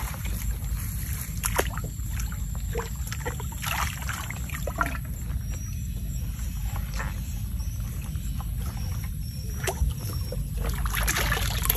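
Bamboo eel trap being worked out of shallow muddy water: water sloshing and mud squelching, with scattered small splashes and knocks over a steady low rumble. Near the end there is a louder rush of water as the tube comes up out of the ditch.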